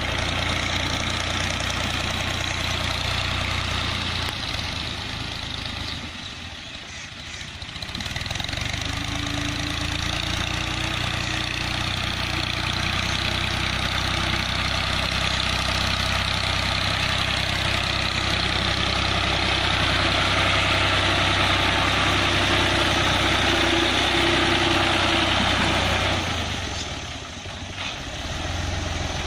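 Farm machine's engine running steadily, with the sound dipping briefly twice, about a quarter of the way in and near the end.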